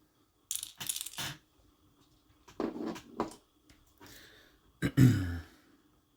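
Small plastic and metal parts of an RC car's front differential housing clicking and rattling as the diff cover is wiggled loose. The sound comes in three short clusters of clicks, the loudest with a dull knock about five seconds in.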